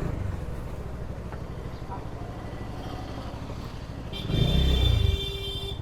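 Motorcycle engine and road noise while riding, a steady low rumble that swells louder for about a second around four seconds in. A high steady tone joins near the end.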